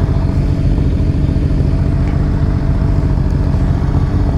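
Motorcycle engines idling steadily, a cruiser motorcycle alongside among them, with no revving.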